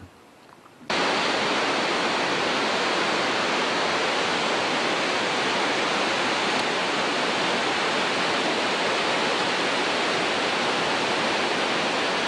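Steady rush of falling water from a waterfall or cascade, starting abruptly about a second in and holding an even level without change.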